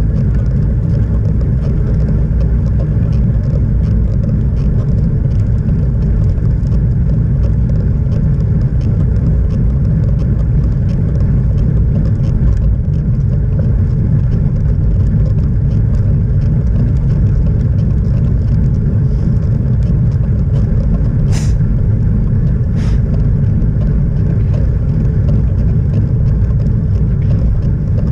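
Wind buffeting a riding cyclist's camera microphone, mixed with tyre noise on the tarmac: a loud, steady low rumble. Two sharp clicks come close together about three-quarters of the way through.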